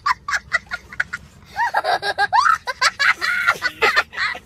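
A young child laughing in quick, repeated high-pitched giggles.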